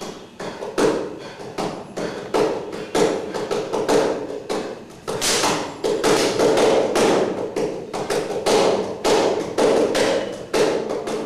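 An irregular run of sharp knocks and thuds, about two or three a second, growing louder about halfway through.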